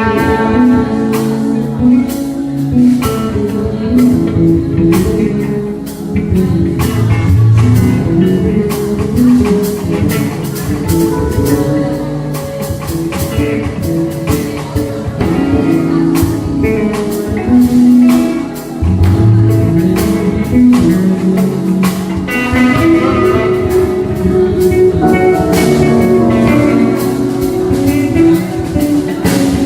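A band playing instrumental music with guitar and a steady drum beat.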